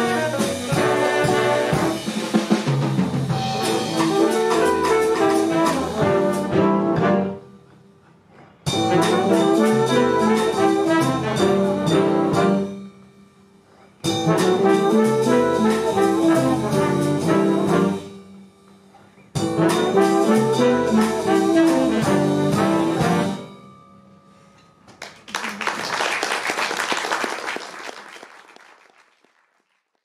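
Jazz octet of tenor and baritone saxophones, trumpet, trombone, guitar, piano, double bass and drums playing the closing phrases of a tune as four loud ensemble passages broken by short pauses. It is followed about 25 seconds in by audience applause that fades away.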